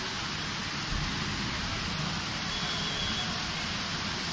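Heavy rain pouring steadily onto a flooded street, a constant hiss.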